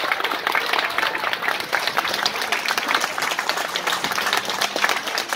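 Audience applauding: many hands clapping in a dense, steady patter after a sung performance.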